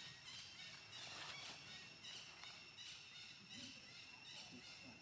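Faint outdoor ambience: a steady high-pitched hum with a few short, faint chirps.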